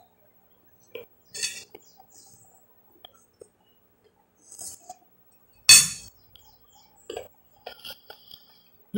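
Metal spoon clinking and scraping against a glass plate: a few scattered light clinks, with one sharper, louder clink about six seconds in.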